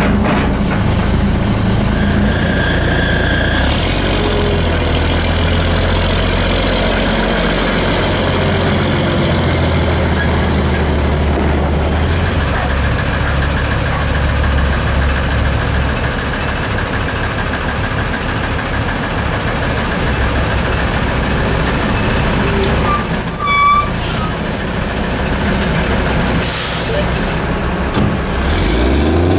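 Diesel engine of a 1982 American LaFrance CTC garbage truck running steadily, with a faint steady whine through the middle. A brief squeak comes about three-quarters through, and a short hiss of air near the end.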